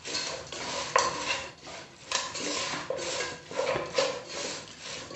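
A spatula stirring a dry chicken and grated-coconut stir-fry in a non-stick pan, scraping against the pan in repeated strokes about two a second, with a sharper knock about a second in.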